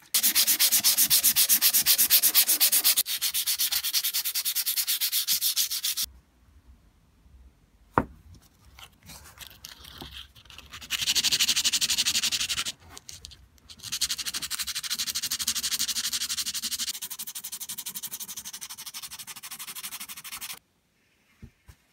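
Small metal grease-gun parts, among them a brass fitting, hand-sanded with sandpaper: fast back-and-forth rasping strokes. The sanding stops about six seconds in, leaving a few small handling knocks, then resumes in two long stretches with a brief break in between.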